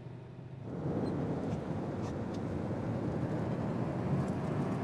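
Car driving on a snowy road, heard from inside the cabin: steady engine and road noise that comes in about a second in, after a brief quieter low hum.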